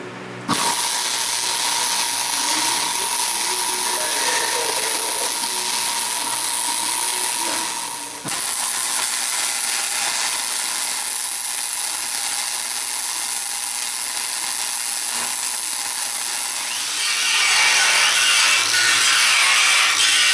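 Wire-feed welder arc crackling steadily as steel flat stock is welded onto a steel plate, stopping briefly about eight seconds in before the next bead. Near the end an angle grinder starts grinding the fresh welds.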